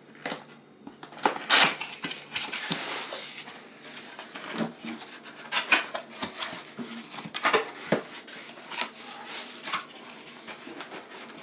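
Packaging being handled while a box is unpacked: irregular knocks and clicks with short rustling scrapes of cardboard and plastic.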